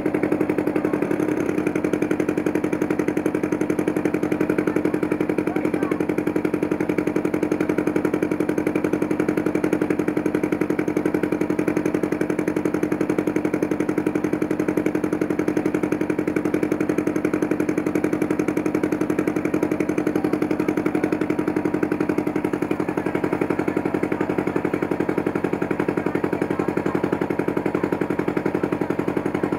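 Motorboat engine running steadily at an even speed, with a fast regular beat.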